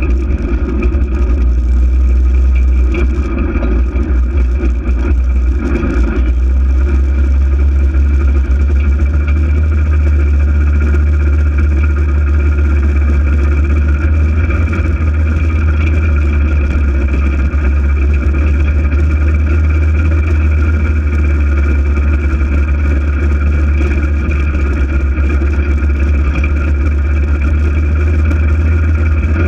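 Polaris RZR 800 side-by-side's twin-cylinder engine running at a steady pace, a loud, even drone with no clear revving.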